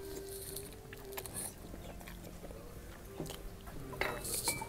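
Close eating sounds: biting into and chewing a khinkali dumpling, with small mouth clicks and a louder burst of crackle about four seconds in.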